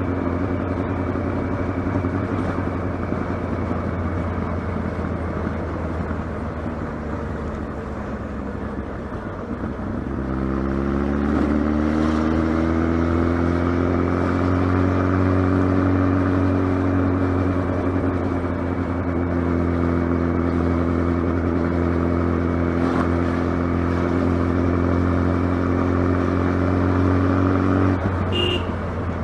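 Kawasaki ZX12R's inline-four engine running steadily, easing off about a third of the way in, then rising in pitch and holding steady for a long stretch before dropping away near the end.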